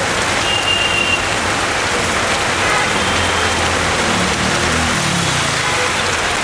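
Heavy monsoon rain falling steadily, a dense even hiss of rain on surfaces. A low rumble swells and fades in the middle.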